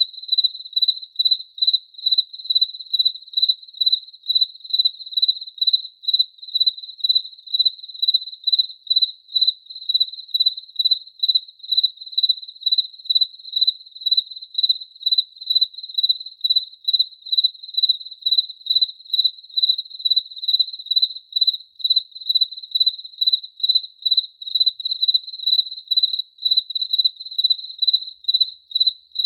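Cricket chirping: a steady, even run of short chirps on one high pitch, about two a second.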